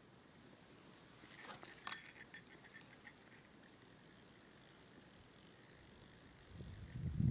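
Fishing reel clicking in a quick ratcheting run for about two seconds, starting about a second in and loudest near its start, then a low rumble rising near the end.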